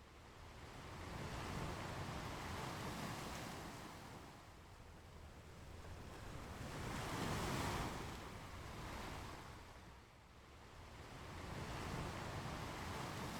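Ocean waves breaking and washing up a beach in slow surges, three swells about five seconds apart, the strongest about halfway through.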